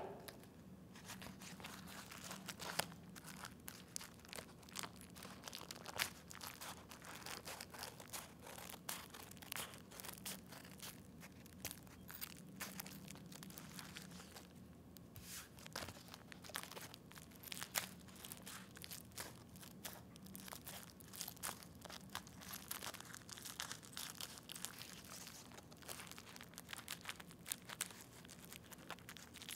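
Scissors snipping through bubble wrap, the plastic crinkling as it is handled: a faint, irregular run of small cuts and crackles.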